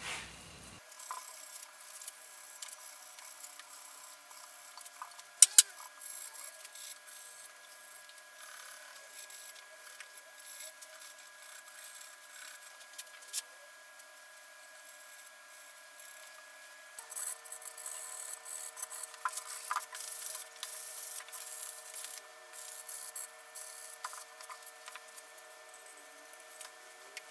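Hand sanding of a guitar's bare wooden body and neck: sandpaper rubbing in quick, scratchy strokes, busier in the second half. Two sharp knocks come close together about five seconds in.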